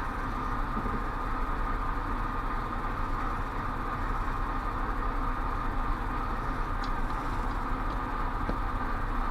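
Steady background hum and hiss with a faint high steady tone, like a fan or appliance running in the room. A couple of faint light clicks come near the end.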